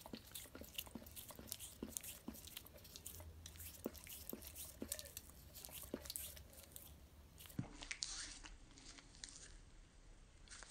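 A dog licking frozen dog ice cream (Frosty Paws) from a small hand-held cup: faint, irregular lapping and smacking clicks, several a second.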